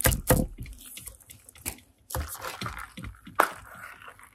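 Plastic straw jabbing at the film-sealed lid of a plastic drink cup: a few hard taps at the start, then crinkly rustling of the film and a sharp click about three and a half seconds in.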